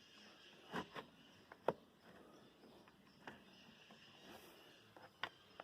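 A few short, sharp clicks and taps, the loudest about a second and a half in, from a wire being handled and pushed through a car's plastic interior trim. They sit over a faint steady hiss.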